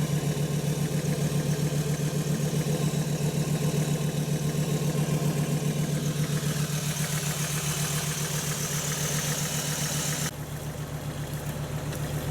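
Diesel vehicle engine running steadily with an even pulse. A high hiss rides over it from about halfway and cuts off suddenly near the end.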